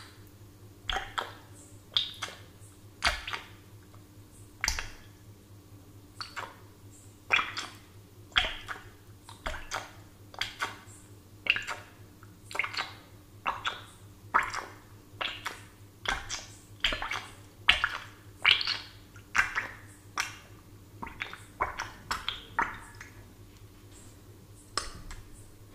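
Bubbles in a glass of water: short watery plops and glugs with a brief ring, coming irregularly about one or two a second.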